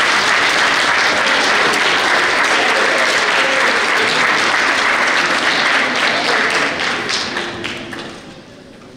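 Audience of children and adults applauding, a dense steady clatter of many hands clapping that dies away over the last two seconds.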